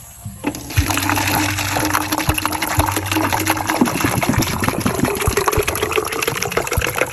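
Water gushing and splashing, a dense rushing noise that starts about half a second in.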